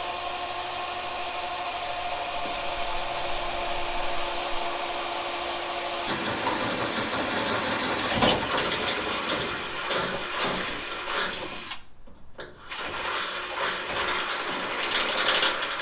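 Electric drill running with a steady whine, then turning rougher and noisier as the bit bites in and bores a hole at the dimple mark in the hood. It stops briefly about twelve seconds in, then drills on.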